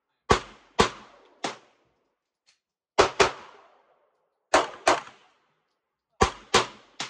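Pistol shots: about ten sharp cracks over seven seconds, fired singly and in quick pairs, each with a short echoing tail.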